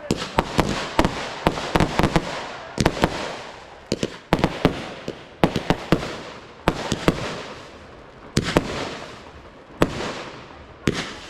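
Pyrotechnic fireworks show: firework bursts going off in quick, irregular clusters of sharp bangs, each followed by a fading tail. The bangs come thickest in the first few seconds and thin out to single bursts near the end.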